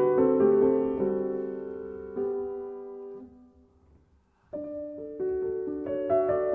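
Slow solo piano music. The held notes fade away almost to silence about three and a half seconds in, and playing resumes about a second later.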